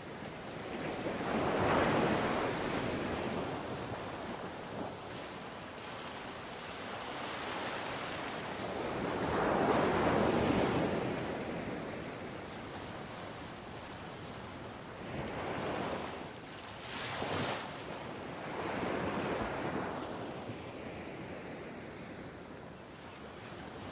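Ocean waves breaking and washing ashore, the surf swelling and fading every few seconds; the biggest surges come about two seconds and ten seconds in, with a sharper, hissing wash near seventeen seconds.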